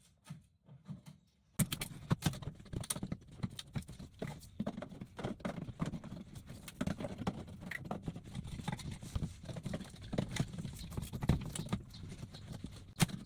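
A panel being slowly pried away from the adhesive that holds it, giving a dense, irregular run of small pops and crackles that starts about a second and a half in.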